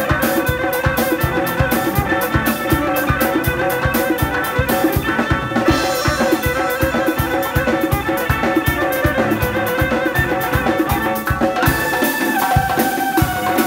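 Live band music through PA speakers: an electric violin melody over a drum kit, doira frame drum and a double-headed drum keeping a steady fast beat. Near the end the drums drop out, leaving held melody notes.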